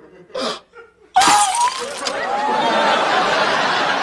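Studio audience laughter that breaks out suddenly about a second in and carries on loudly.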